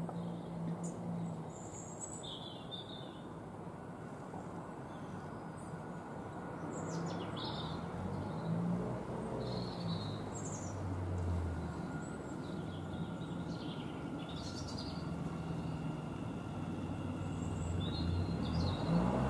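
Thameslink Class 700 electric multiple unit drawing slowly into the station, a low steady hum from its traction equipment and wheels that grows louder near the end as it comes closer. Small birds chirp at intervals over it.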